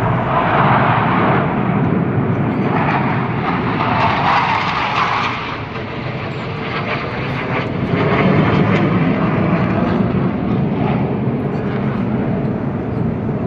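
Loud, continuous jet engine noise from the Surya Kiran team's BAE Hawk jet trainers flying overhead. It is strongest in the first five seconds, eases briefly about six seconds in, then builds again.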